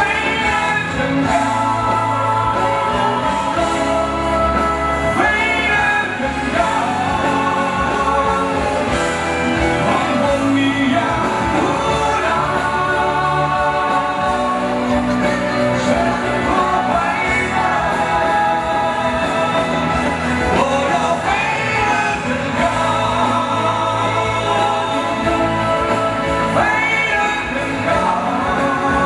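A man singing a song live into a handheld microphone over instrumental accompaniment.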